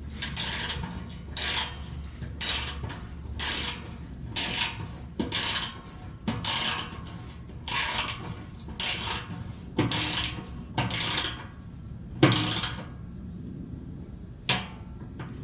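Hand ratchet clicking in short strokes about once a second as bolts are run in and tightened, with a sharp metallic knock about twelve seconds in and another near the end.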